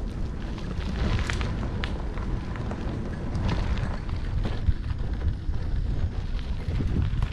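Wind buffeting the microphone and tyre rumble from a bicycle riding a trail, a steady low rush with scattered sharp clicks and ticks.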